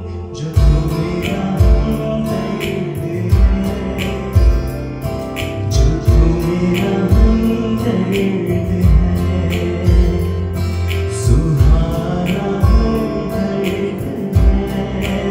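A man singing into a handheld microphone over recorded accompaniment with a steady beat.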